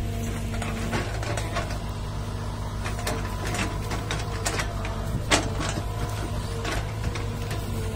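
Excavator diesel engine running steadily, with scattered metallic clanks and knocks from the machine at work; one sharper knock about five seconds in.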